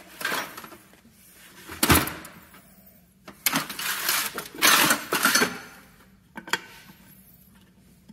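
Hand-handling clatter of a new ball bearing and metal parts as the bearing is fitted by hand into an NV241 transfer case's aluminum tail housing: a sharp knock about two seconds in, a stretch of rattling a little later, and a single click near the end.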